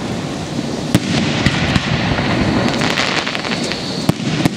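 Aerial fireworks display: shells bursting in the sky, with sharp bangs about a second in, around three seconds and just after four, over a continuous background of further bursts.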